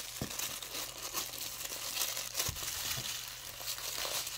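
Toy packaging crinkling and rustling as it is opened by hand, with a few soft knocks.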